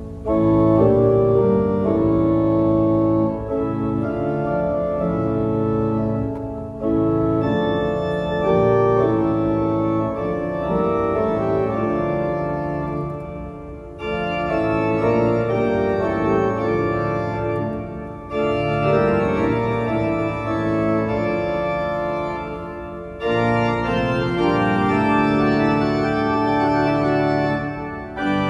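Church pipe organ played from the console: full, sustained chords moving from one to the next. Short breaks fall between phrases about every four to five seconds, each followed by a loud new entry.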